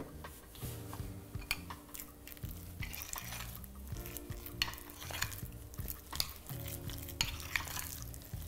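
Metal spoon stirring and scraping a thick, plaster-like edible lace paste in a small glass bowl, with irregular clinks of metal against glass as white gel colouring is worked into the mixture.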